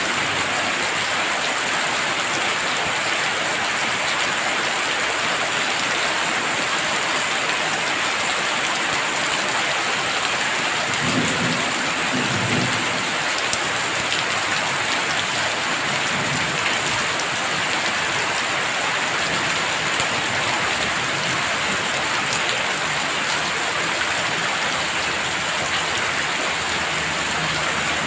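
Heavy rain falling steadily. A low rumble of thunder comes through about halfway through.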